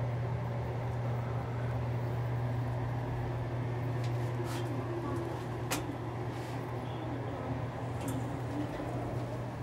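Lift ride: a steady low hum with a few light clicks and one sharper knock about halfway through, and the lift doors sliding open near the end.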